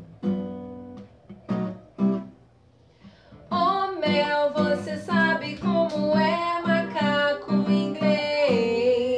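Acoustic guitar strummed in a few separate chords, a short pause, then a woman singing a children's song over the guitar from about three and a half seconds in.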